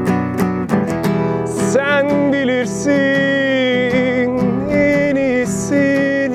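Acoustic guitar strummed in a steady rhythm; from about two seconds in a held, wavering wordless melody runs over the chords.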